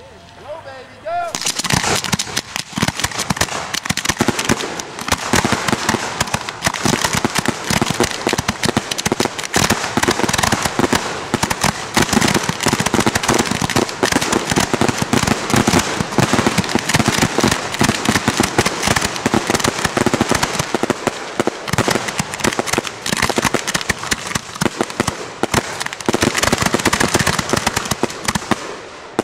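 Fireworks barrage: a dense, rapid, continuous run of mortar launches and shell bursts that starts about a second in and runs almost without a break, dipping briefly near the end.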